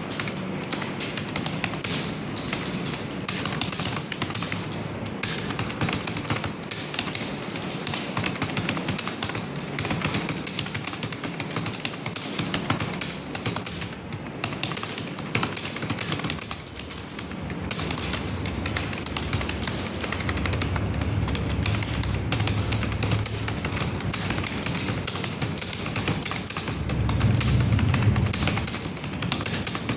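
Fast, continuous typing on a computer keyboard: a steady stream of key clicks. A low hum joins in during the last third.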